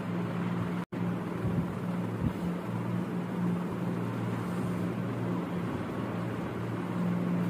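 Steady low machine hum with a hiss over it, as from a motor running in the room, broken by a couple of faint knocks a second and a half to two seconds in. The sound cuts out completely for an instant just under a second in.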